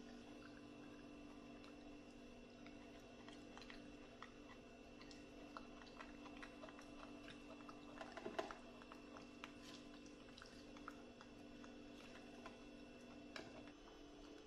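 Near silence with a faint steady hum and scattered soft clicks and crinkles, the loudest cluster about eight seconds in: a young macaque picking petals off chrysanthemum flowers in a vase.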